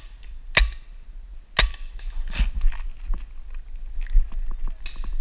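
Paintball markers firing: sharp pops scattered irregularly, the two loudest about a second apart near the start, with fainter shots between.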